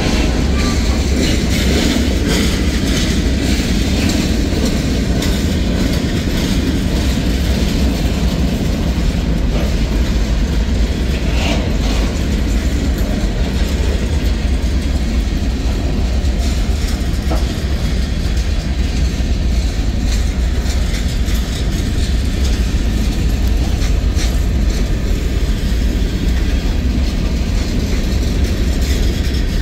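Freight train cars rolling past close by: a steady heavy rumble of covered hoppers and boxcars, with wheels clicking over the rail joints.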